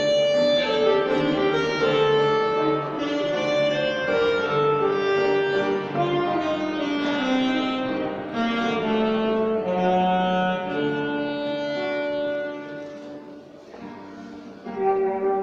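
Alto saxophone playing a melody of sustained notes that move step by step. About thirteen seconds in it grows soft for a moment, then comes back loud just before the end.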